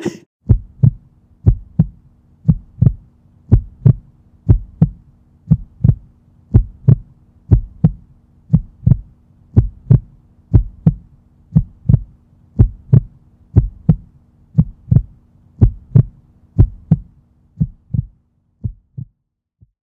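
Heartbeat sound effect: paired low thumps, one pair about every second, over a faint steady hum. The beats thin out and fade near the end.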